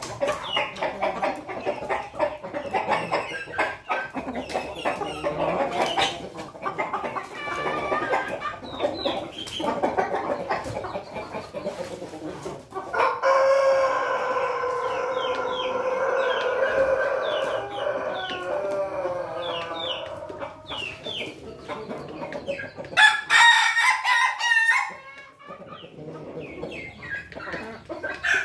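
Young pelung, bangkok and ketawa crossbred chickens clucking. About thirteen seconds in, a rooster crows one long drawn-out crow lasting about eight seconds, and a short burst of louder, higher calls comes a little later.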